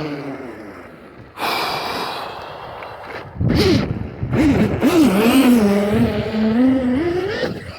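Arrma Big Rock V3 RC monster truck's brushless motor whining under throttle, pushed by a 4S battery. The pitch rises and falls with several throttle bursts, then climbs sharply near the end as the truck accelerates.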